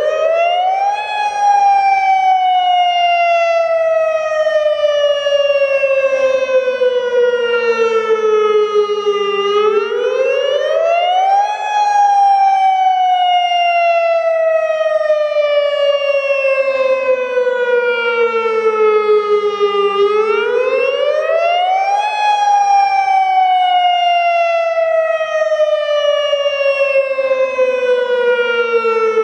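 Federal Signal Modulator 6048 electronic outdoor warning siren sounding the wailing Attack signal: the pitch rises quickly, falls slowly over about nine seconds, then jumps up again, three times. It still sounds with drivers that the uploader says are blown.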